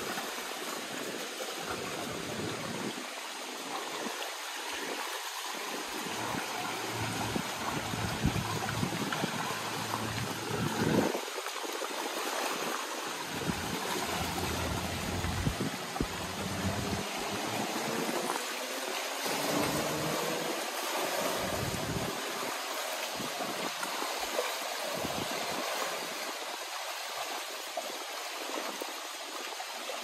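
Waves washing onto the stones of a windswept reservoir shore, with wind gusting against the microphone in irregular low rumbles.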